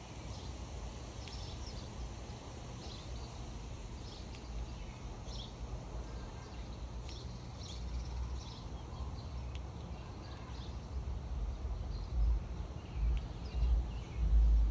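Outdoor porch ambience: scattered short high chirps over a steady low rumble, with louder low bumps buffeting the microphone in the last few seconds.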